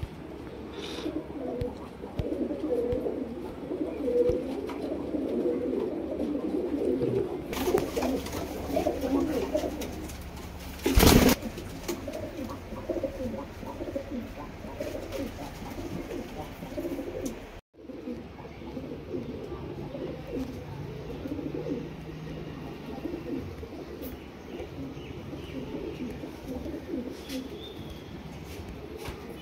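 Domestic pigeons cooing continuously, several calls overlapping. A brief loud thump about eleven seconds in.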